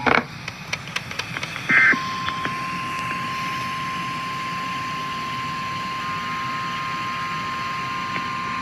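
Emergency alert broadcast: a few clicks and a short warbling data burst about 1.7 seconds in, then a steady single-pitch alert tone. This is the NOAA Weather Radio warning alarm that comes before a National Weather Service flash flood warning.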